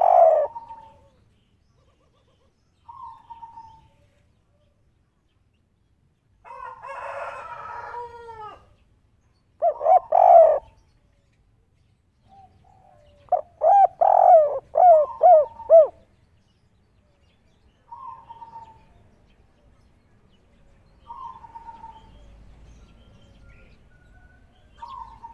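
Spotted dove (tekukur), a "kuk 3" bird, cooing in short phrases of pitched notes that each rise and fall. The loudest is a run of about five quick coos in the middle, and quieter single notes come between the phrases.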